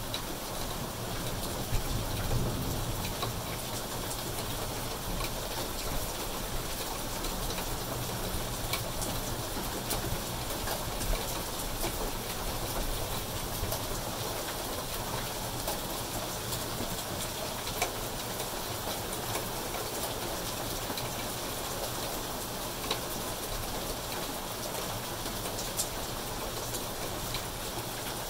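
Steady rain falling on leaves, grass and a concrete path, a constant hiss with scattered sharp drips ticking nearby.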